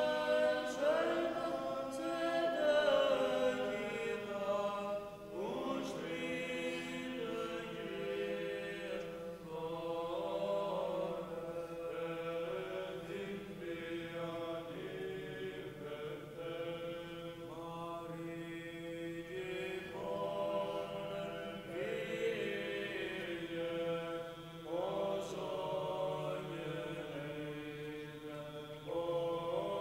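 Male voices of a monastic choir singing Orthodox liturgical chant, held notes that change pitch in phrases every few seconds.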